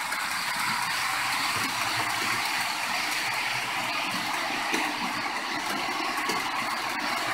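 HO-scale model freight train, a D443 locomotive with Hbbillns wagons, rolling past on the layout track: a steady rushing whir of the wheels on the rails and the model's motor, with faint fine clicks running through it.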